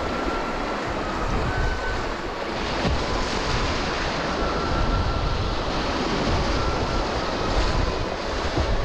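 Fast whitewater of a river in spate, rushing and splashing close around a kayak, with low buffeting on the microphone.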